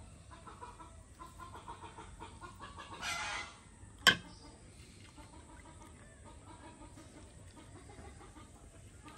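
Chickens clucking in the background, with a short burst of noise about three seconds in and one sharp metal clink about four seconds in, as a steel ladle strikes an aluminium pot.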